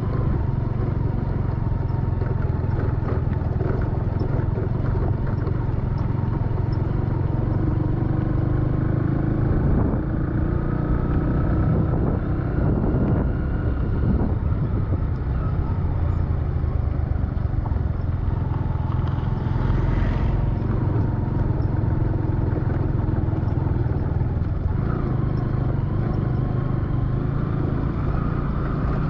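Steady engine hum and road noise of a vehicle on the move, with a brief louder whoosh about two-thirds of the way through.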